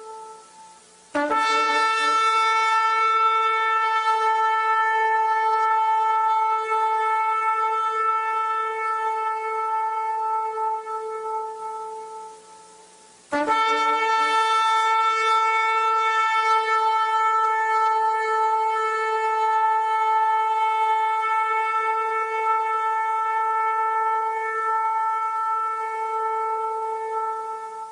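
A shofar sounded in two long, steady blasts, each starting suddenly and held at one pitch for about twelve seconds before fading. The tail of an earlier blast dies away just before the first.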